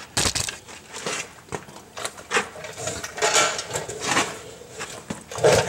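Irregular handling noise: light knocks, clicks and rustles, with a louder knock just before the end.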